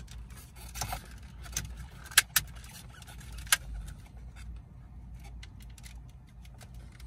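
Hard plastic clicks and taps as a replacement carbon-fibre-look radio and AC control panel trim is handled and fitted against the dash, with a few sharp clicks about two seconds in and one near three and a half seconds. A faint low hum runs underneath.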